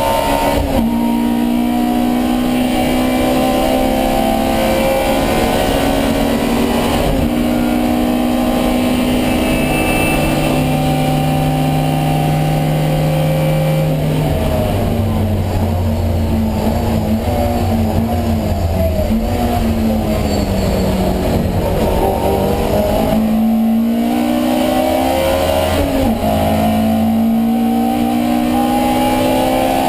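Alfa Romeo Giulia 1600's twin-cam four-cylinder engine at racing speed. It revs up through the gears with upshifts about a second in and about seven seconds in, holds high revs, then drops and wavers for several seconds past the middle before climbing again with another upshift near the end.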